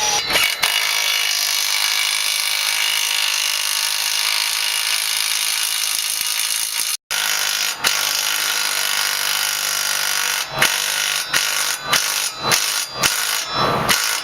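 Power drill boring a hole through a truck's chassis frame, running steadily, then stopping and starting again several times near the end.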